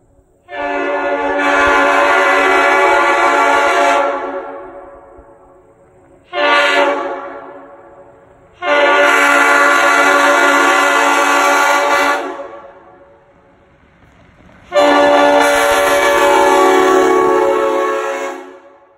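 Leslie S5D five-chime air horn, a 1957 tab-back with 277 and 330 bells fitted to sound the same chord as an M5, blown in four blasts: long, short, long, long. Each blast sounds a steady chord and tails off as the air is shut off.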